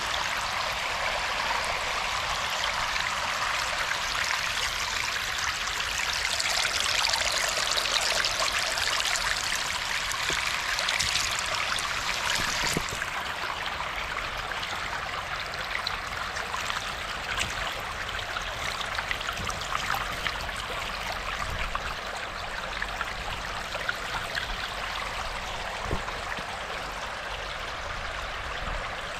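Water running steadily with a continuous rushing hiss. It is louder in the first half and drops suddenly to a quieter, even flow about 13 seconds in.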